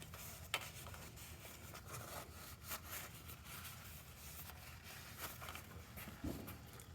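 Faint rustling and handling noise, with a few light clicks and taps scattered through it.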